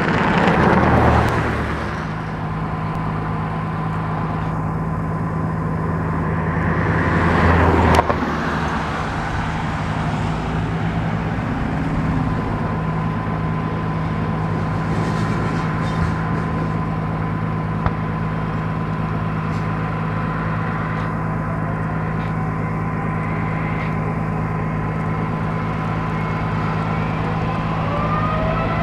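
Boeing 787-9 airliner's Rolls-Royce Trent 1000 turbofans running at low thrust as it taxis: a steady jet-engine drone with a low hum and a thin steady whine. The first several seconds are louder and swelling, then the sound drops abruptly about eight seconds in. Near the end a whine starts to rise in pitch as the engines begin to spool up.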